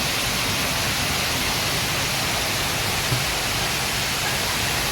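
Water rushing steadily down a man-made waterfall, an even hiss, with a small low bump about three seconds in.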